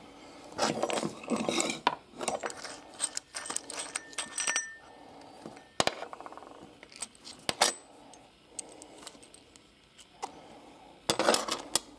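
Small metal light-fixture parts (a threaded rod, washer, nut and decorative finial) clinking and scraping as they are handled and set down on a glass stovetop, in an irregular run of clicks and clatters, busiest in the first few seconds and again near the end.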